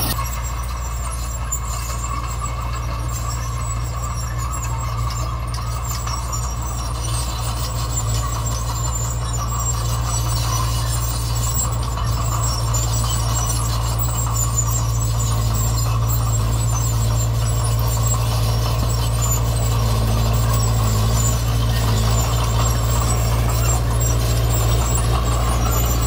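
Heavy diesel earthmoving machinery running steadily with a low engine hum, gradually getting a little louder.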